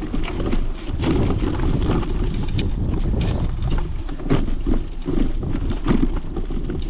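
Mountain bikes rolling over a rocky dirt trail: tyres crunching on gravel and rock, with frequent clicks and rattles from the bikes, and wind rumbling on the microphone.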